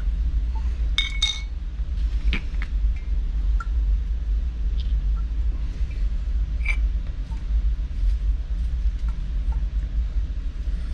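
A few light clicks and clinks of metal valve parts and tools being handled, over a steady low rumble.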